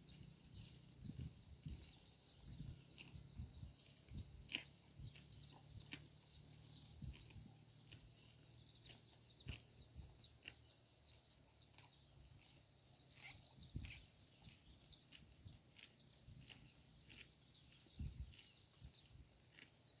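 Faint, scattered soft crunches and tearing of grazing cattle cropping short grass, over high, rapid chirping in the background.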